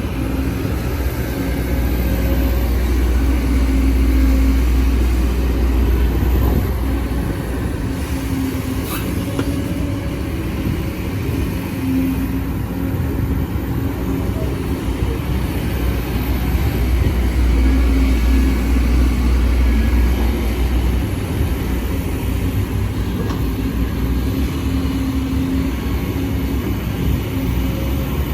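Sumitomo SH210F hydraulic excavator's diesel engine running steadily under working load, its low drone swelling and easing every several seconds. A single sharp click about nine seconds in.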